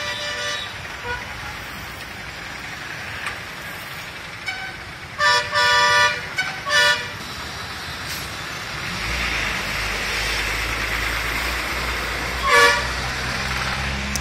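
Street traffic with vehicle horns: a few short toots about five to seven seconds in and another near the end, over steady road noise, with a low engine rumble coming in about two-thirds of the way through.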